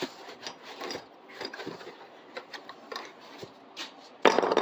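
Unboxing handling noise: scattered light clicks and rubs of parts and packing material being moved. A louder scraping rustle starts near the end.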